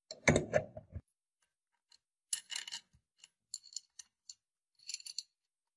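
Small metal parts being handled: a dull knock with some clatter near the start, then three short bursts of light metallic clinks and scrapes about a second apart.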